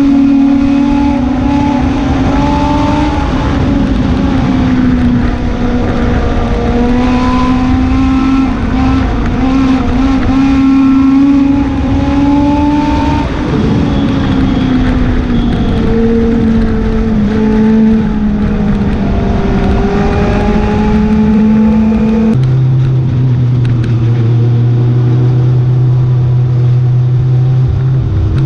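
Legend car's Yamaha 1250 cc four-cylinder motorcycle engine at racing speed, heard from inside the cockpit, its pitch rising and falling with the throttle through the turns. About three-quarters of the way through it drops suddenly to a lower, steady note as the car slows behind the bunched-up field.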